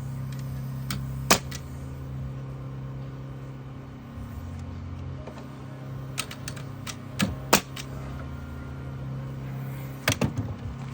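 Pneumatic nail gun firing: single sharp shots about a second in, a quick pair past the middle, and a short burst of shots near the end, over a steady low hum.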